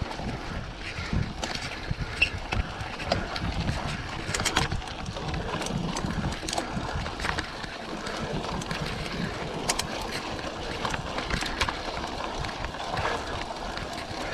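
Bicycle being ridden: steady wind noise on the microphone, with scattered clicks and rattles from the bike.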